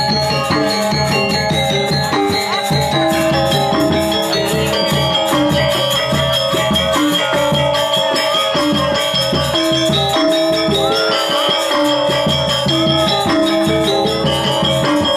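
Balinese gamelan music: dense, fast percussive strokes over steady ringing metallic tones, playing without a break.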